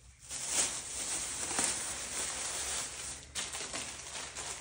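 Plastic packaging and shopping bags crinkling and rustling as they are handled, in an irregular crackle.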